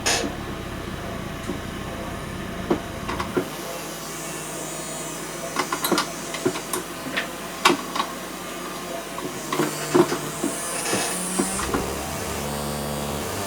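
Circuit-bent DIY noise box giving a steady electronic drone of several fixed tones, broken by scattered sharp clicks and crackles. The low hum underneath drops away a few seconds in, and a brief high hiss comes up near the end.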